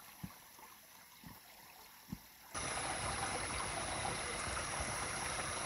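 A few faint soft thuds, then about two and a half seconds in a sudden switch to a steady rushing of flowing water.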